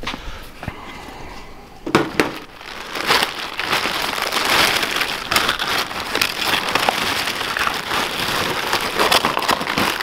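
Plastic carrier bag rustling and crinkling as hands rummage through the sheets of sandpaper packed inside it, starting with a knock about two seconds in.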